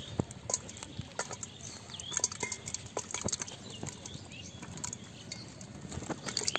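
Irregular clicks and knocks as small eel-like fish are shaken out of a woven bamboo fish trap and drop and wriggle into an aluminium pot.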